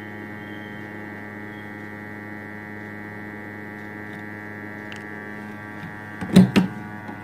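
Steady hum of a hot-air rework station blowing on a phone's eMMC chip to melt its solder for removal. A few sharp clicks of tool handling come about six seconds in.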